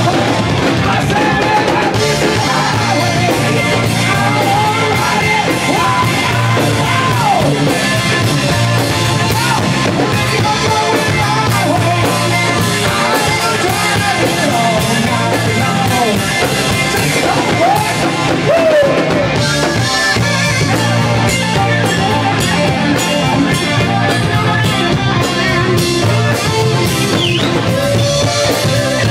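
Live rock band playing loudly: electric guitars and a drum kit with a male lead singer on a microphone, his singing mostly in the first two-thirds.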